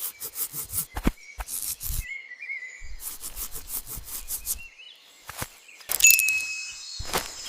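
Outdoor nature ambience of irregular rustling and crackling clicks, with a short wavering chirp-like call about a second and a half in.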